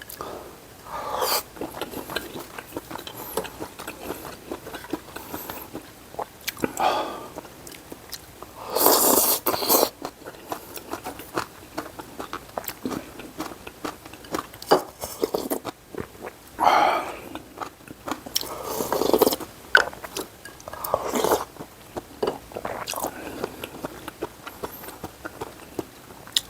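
A person eating jjamppong noodles close to the microphone: several loud, second-long slurps with chewing between them.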